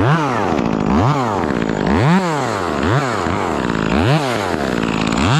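Chainsaw starting up suddenly and being revved up and down, its pitch rising and falling about once a second.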